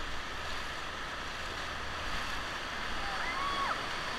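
River whitewater rushing over rocks, a steady even hiss. A short, faint voice-like call rises and falls near the end.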